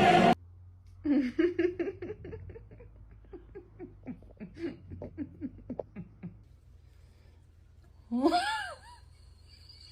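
Laughter: a run of short pitched ha-ha bursts that tails off over about five seconds, followed near the end by one short squawk that rises and falls in pitch.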